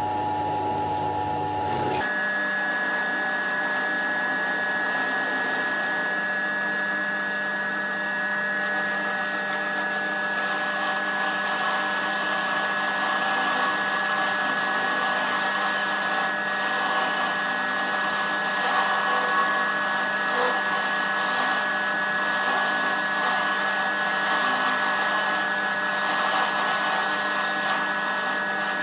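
Milling machine running, its end mill cutting an aluminium casting as the rotary table is cranked by hand. A steady motor whine over the rough noise of the cut, the pitch of the whine changing about two seconds in.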